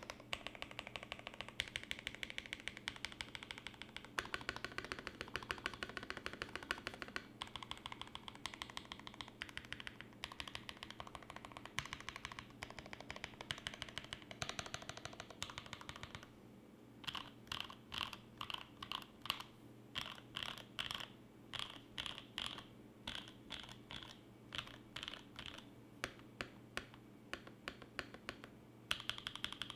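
Primus75 mechanical keyboard with lubed Creampaca switches on an aluminium plate and GMK keycaps, typed on quickly in a steady run of clacks. About 16 s in, the typing slows to separate, distinct keystrokes a few per second. The fast typing resumes near the end.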